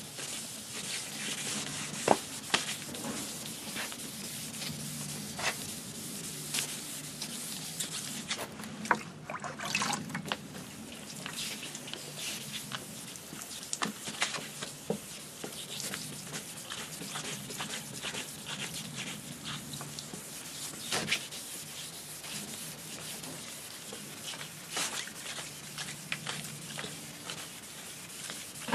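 1500-grit wet/dry sandpaper rubbing back and forth in straight strokes over a foggy plastic headlight lens. It makes a continuous scratchy rasp, with scattered sharp clicks.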